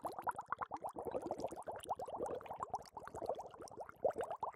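Liquid bubbling, a rapid, steady run of many small bubbles.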